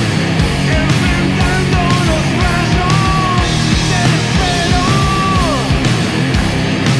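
Stoner rock band playing at full volume, with a thick low end under a lead melody line that bends between held notes and slides steeply down about five and a half seconds in.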